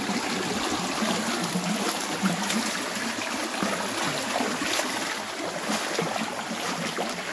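Shallow creek running and trickling over stones, a steady rush of water.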